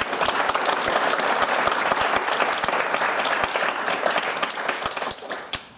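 Audience applauding at the end of a lecture, thinning out to a few last claps near the end.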